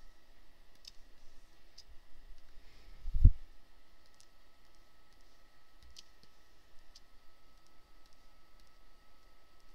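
Scattered light clicks of a computer mouse, about half a dozen over several seconds, with one low thump about three seconds in. A faint steady electrical whine runs underneath.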